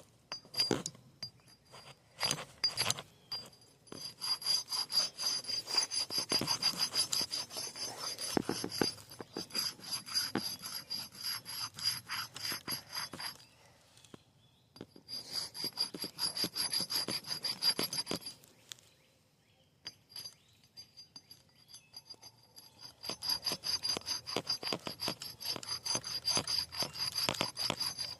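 Steel axe blade scraped back and forth against a chunk of concrete to sharpen it: fast, repeated rasping strokes, broken by a short pause about halfway and a longer pause of a few seconds later.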